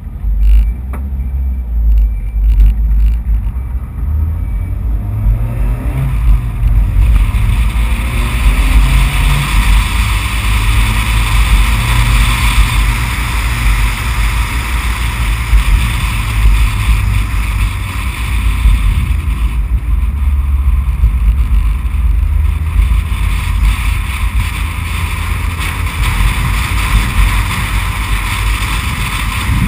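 Race car engine pulling away from a standstill and running hard, a loud low rumble, joined after several seconds by a rushing wind and road noise as speed builds.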